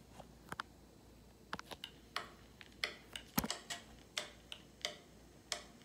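Irregular faint clicks and ticks, about one to three a second at uneven spacing, over low room hiss.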